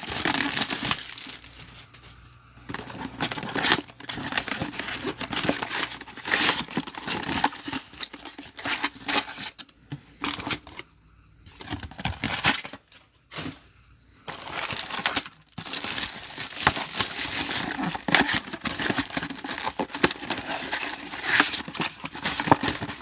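Plastic wrapping of trading-card boxes and packs being torn open and crinkled by hand, in irregular crackling bursts with a few short pauses.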